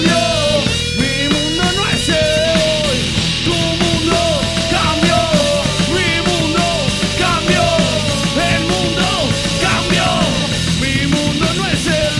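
Live rock band playing an instrumental passage, with a melody line that bends and slides in pitch over a steady rhythm.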